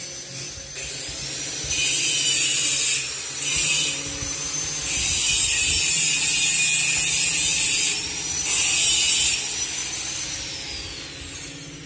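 Electric angle grinder on steel: a high motor whine with several loud bursts of grinding as the disc bites the metal, the longest about three seconds. Near the end the grinder is switched off and its whine falls away as the disc spins down.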